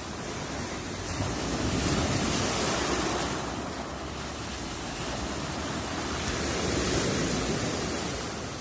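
Black Sea surf: waves breaking and washing on the shore, swelling up twice and easing off in between.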